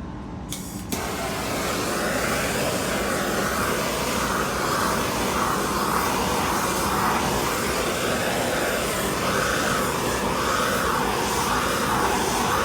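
Handheld torch hissing steadily as its flame is swept over freshly poured epoxy resin to pop surface bubbles. A click comes about half a second in, and the hiss starts just after it.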